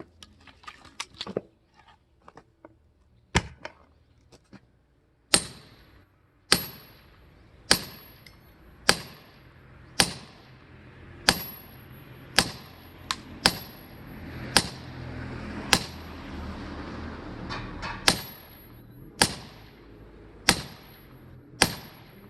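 Light knocks and clatter of wood, then a steady run of hard strikes about once a second, each with a bright ring, as firewood is split with a striking tool.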